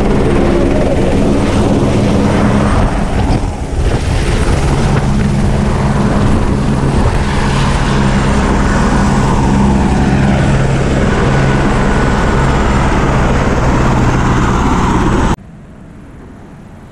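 Helicopter's engine and rotor running close by: a loud, steady noise with a low hum. It cuts off suddenly near the end, leaving only faint sound.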